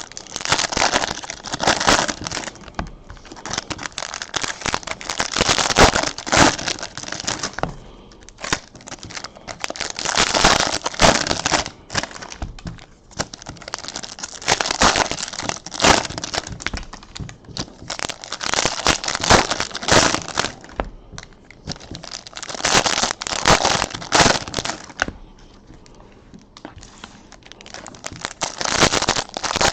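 Crinkly plastic wrapping on trading-card boxes and packs being handled and torn, in repeated bursts of crinkling a few seconds long.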